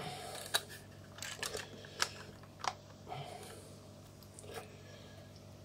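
Small, scattered clicks and taps of a metal rangefinder camera body being handled, about half a dozen light knocks spread over the few seconds, over a faint steady room hum.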